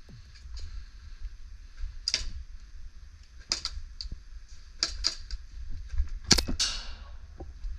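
Airsoft guns firing scattered single shots, about six sharp cracks a second or so apart, over a low rumble.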